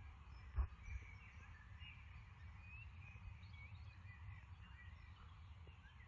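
Faint meadow ambience: small birds singing in short chirps over a steady low rumble, with a single soft thump about half a second in.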